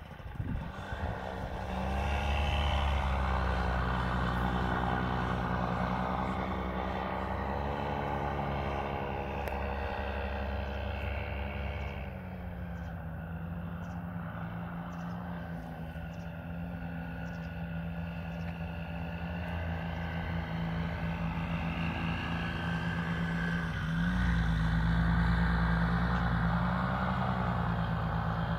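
Paramotor engine and propeller running steadily, its pitch drifting up and down; quieter for a stretch in the middle and louder again near the end.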